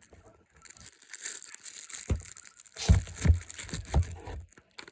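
Packaging crinkling and rustling as it is handled and unwrapped, with a few dull knocks in the second half.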